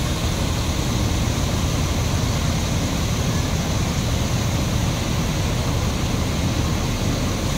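Bus diesel engines running in a steady low rumble, with an even noise haze over it.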